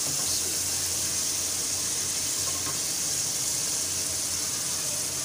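Boiled beef liver pieces sizzling steadily in hot oil in an aluminium karahi, an even hiss with no breaks.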